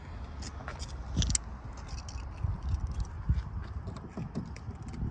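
Footsteps on asphalt: irregular low thumps and shoe scuffs, with small sharp clicks and rustles mixed in.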